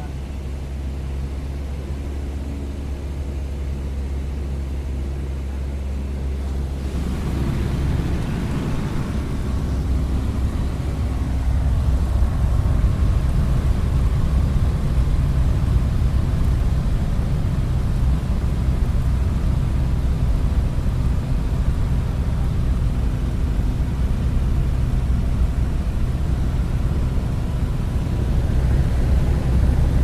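Propeller plane's engine drone heard from inside the cabin, steady and low. About seven seconds in the sound swells louder, with a rush of wind added over the engine as the cabin window is opened, and it stays at that level.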